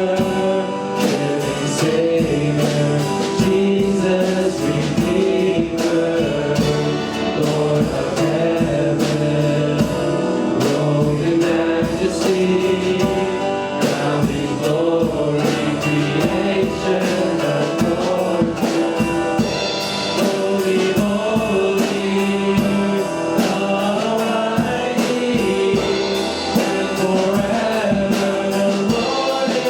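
Christian worship song: a band with drums accompanies several voices singing together.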